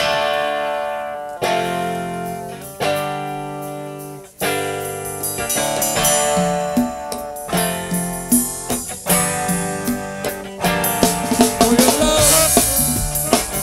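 Band music: electric guitar chords struck and left ringing, four times about a second and a half apart, then quicker guitar and bass notes, with drums and cymbals coming in near the end.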